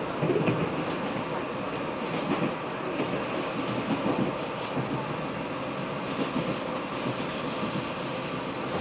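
Train rolling through a station without stopping, heard from inside a passenger coach: a steady rumble of wheels on rails with a few faint knocks.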